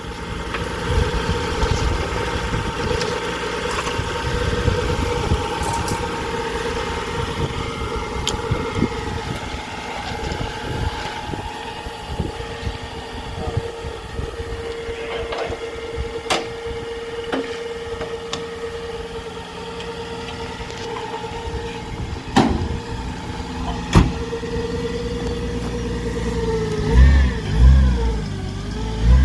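Turbocharged Holden VL engine idling unevenly, with a steady high whine over it from the Bosch 044 fuel pump. The engine is blipped twice near the end.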